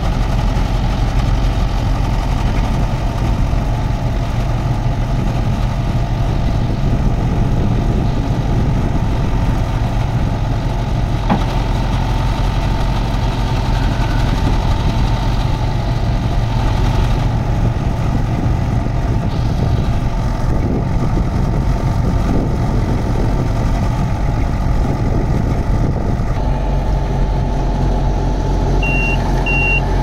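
Bomag BF300P asphalt paver's diesel engine running steadily while its hopper wings are hydraulically lowered, the engine note shifting slightly near the end. Just before the end a series of short electronic beeps starts.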